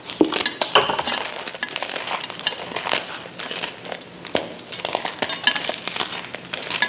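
A pressed block of gym chalk being crushed, crunching and crumbling in an irregular run of small sharp cracks.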